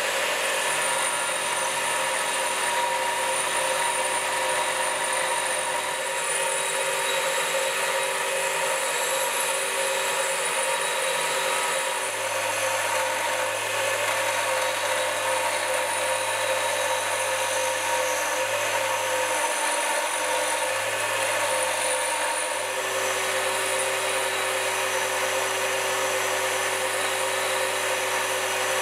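Einhell bench grinder running steadily while the rusty steel head of an old hammer is pressed against its grinding wheel: a continuous hiss of grinding over the motor's hum as the rust is ground off.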